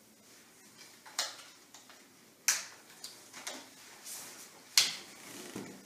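Straps of a Donway traction splint being fastened around the leg just above the knee: a handful of short, sharp noises, the loudest about two and a half and nearly five seconds in.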